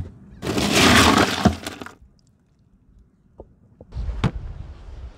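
Ice cubes in a cooler clattering and crunching for about a second and a half as a beer can is moved through the ice. About four seconds in, a single sharp knock as the plastic cooler lid is shut.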